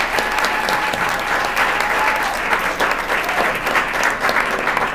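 Theatre audience applauding, dense steady clapping with a few voices cheering over it.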